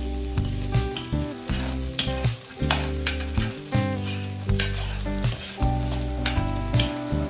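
Music with a steady beat and deep bass notes, over food sizzling in a pot on the stove.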